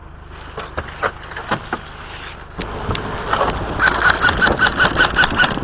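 Vehicle engine running, louder from about two and a half seconds in as the vehicle speeds up, with scattered sharp clicks. In the second half comes a rapid, even run of about six sharp shots a second, typical of airsoft rifle fire.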